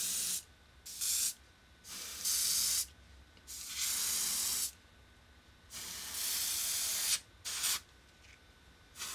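Dual-action airbrush spraying paint at about 10 PSI: a string of about six short bursts of hiss, each up to about a second and a half long, with quiet gaps between as the trigger is pressed and let go.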